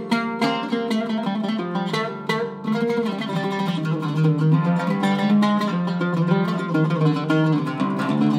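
An Iraqi-style Zeryab oud with a cedar soundboard and Aquila red strings, played solo with a plectrum: quick runs of picked notes at first, then more held, ringing notes.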